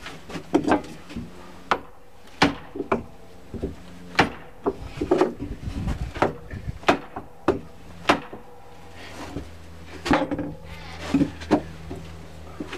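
Irregular sharp wooden knocks and clacks as pieces of a wooden railing are handled and fitted: about twenty hits, some in quick pairs.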